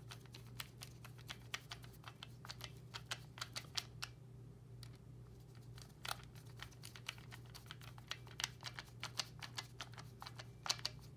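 Wheeler torque screwdriver, set to 25 inch-pounds, clicking in quick, irregular ticks as it tightens an optic's mounting screws into a pistol slide, with a pause of about two seconds partway through.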